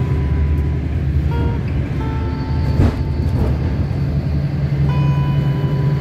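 Passenger train running, heard from inside the carriage as a steady low rumble. Soft background music of held notes plays over it, with a brief swish about halfway through.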